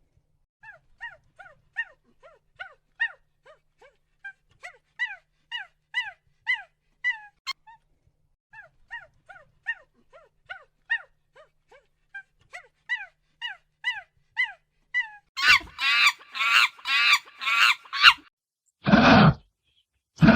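An animal's repeated short calls, each falling in pitch, about two or three a second. About fifteen seconds in, louder, rapid, harsh calls take over, followed by two loud grunts near the end.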